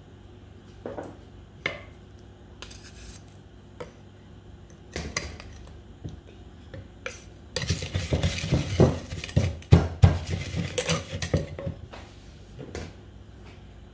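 Wooden pestle knocking and stirring in a wooden mortar, with a ceramic spoon clattering against it: a few separate knocks at first, then a dense run of pounding and mixing past the middle that dies away a couple of seconds before the end.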